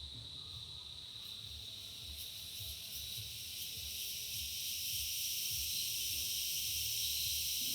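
Forest insects trilling steadily in a high, continuous band. A second, higher pulsing insect chorus swells in from about two seconds in and grows louder, over a low rumble of wind.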